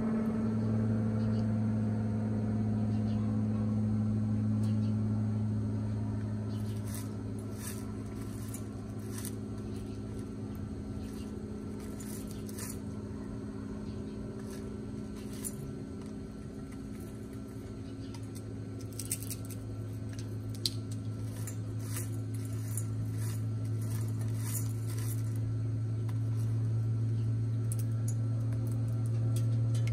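Scarlet macaw's beak clicking and clinking against a stainless steel food bowl as it eats, in scattered clusters of sharp clicks through the middle of the stretch, over a steady low hum.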